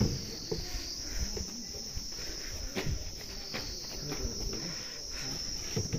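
Steady high-pitched drone of insects, with a few faint knocks and shuffles underneath.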